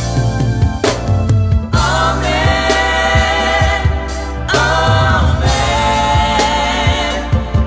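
Gospel choir singing over a band, with bass, drums and keyboard.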